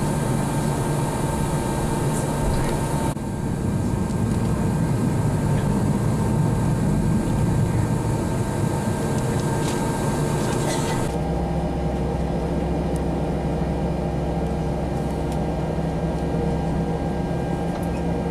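Airbus A321 cabin noise on the ground: the engines at idle and the air system running give a steady hum with several steady tones. The sound shifts about 3 s in, and again about 11 s in, when a steady deep hum comes in.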